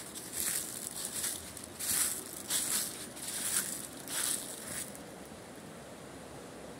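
Footsteps crunching through dry fallen leaves, about seven steps in a steady walking rhythm that stop a little after the middle. A steady rush of flowing river water remains once the steps stop.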